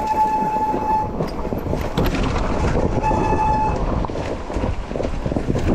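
Enduro motorcycle ridden over rough ground, its front brake giving a steady high squeal twice, the first about a second long and the second shorter, about three seconds in. The squeal comes from a hot front brake that is losing its bite on a long descent.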